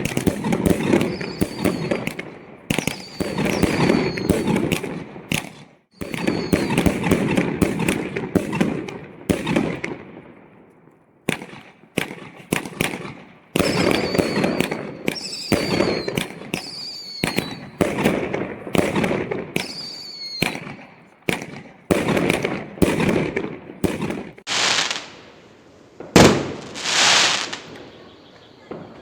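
Fireworks going off: repeated bangs and crackling bursts, with short high whistles that fall in pitch. Near the end come two hissing rushes of about a second each.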